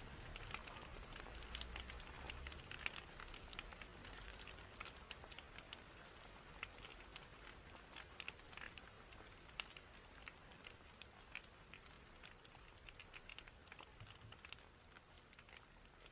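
Faint, irregular crackling: many small clicks over a soft hiss, slowly fading down.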